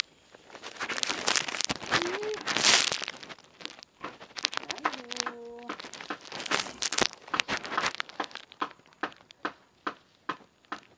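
Plastic bags crinkling and rustling as gloved hands rub a newborn piglet to revive it, loudest in the first few seconds. A short pitched call comes about five seconds in, then a run of quick regular taps, about three a second.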